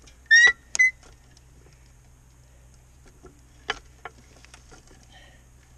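Pittsburgh floor jack squeaking twice as it is worked, the first squeak rising in pitch, then a single sharp click a little before four seconds in.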